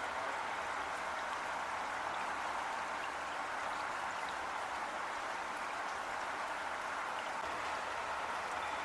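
Heavy rain falling steadily, a dense even hiss of drops with faint scattered patters.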